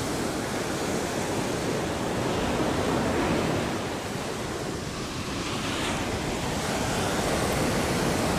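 Ocean surf breaking on a beach: a steady rush of waves that swells about three seconds in, eases a little, then builds again.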